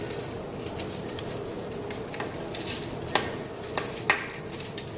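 Rustling and light clicking of flower stems being twisted together by hand, with a couple of sharper clicks in the last two seconds.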